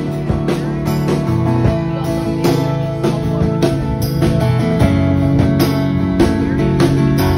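Live band playing: strummed acoustic guitar over a drum kit keeping a steady beat.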